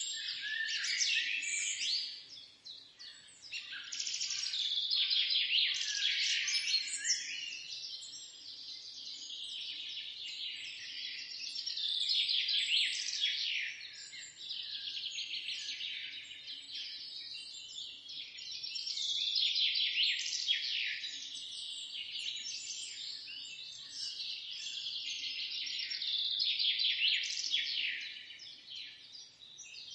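A chorus of small songbirds chirping and twittering together, many quick high notes overlapping without pause. The chorus swells and thins out several times, dipping briefly a few seconds in, around the middle, and near the end.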